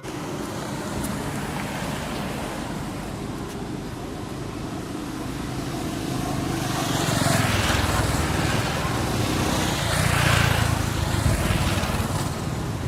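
Road traffic running steadily, with two vehicles passing close, about seven and ten seconds in.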